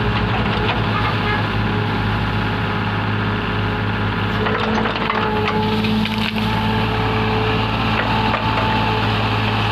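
Backhoe engine running steadily under load, with a higher whine that comes and goes and scattered cracking and crunching as brush and wood are broken up.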